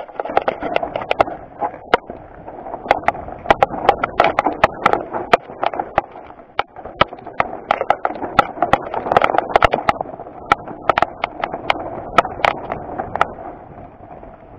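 Mountain bike clattering down a rocky trail: many irregular sharp knocks and clacks of tyres, chain and frame hitting rock over a steady rushing noise. The knocks stop near the end.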